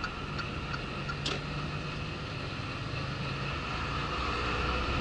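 Heard from inside the cab, a Mercedes 26-tonne rigid lorry's diesel engine runs with road noise as the truck pulls away and gathers speed, growing slowly louder. A few faint ticks sound over it.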